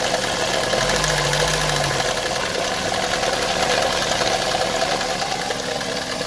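Opel Vectra A engine running with its valve cover removed, so the camshaft and valvetrain are heard openly. A brief lower tone joins about a second in. The camshaft has a badly worn lobe, which the owner blames for the valve tapping.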